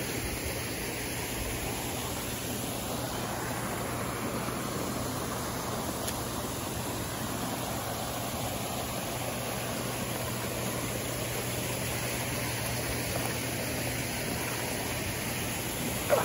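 Steady rush of pool water with a constant low pump hum under it.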